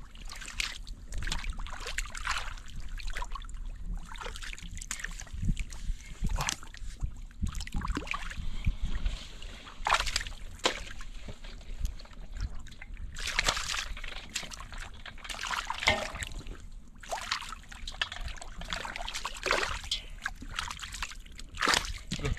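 Water sloshing and splashing in irregular bursts, with some trickling between them.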